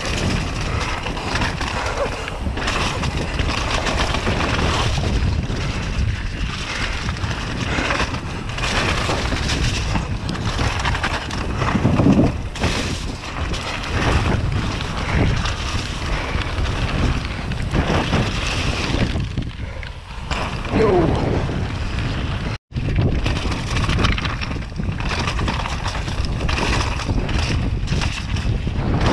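Wind buffeting a GoPro Hero 7 Black's microphone on a fast mountain-bike descent, over the tyres rolling on dirt, gravel and rock and the bike rattling and knocking over bumps. The sound briefly cuts out about three-quarters of the way through.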